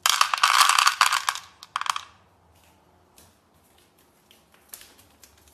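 Dry pet kibble poured by hand into a plastic bowl, rattling for about a second, with a second short clatter of pieces soon after; then only faint scattered clicks.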